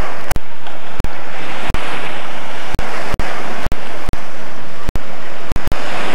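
Surf washing onto the beach, mixed with wind on the microphone, as a steady loud rush. The sound cuts out briefly about ten times at irregular moments.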